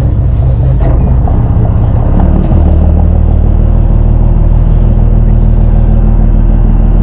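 Fishing boat's engine running with a loud, steady low drone; its note changes about two and a half seconds in and then holds steady.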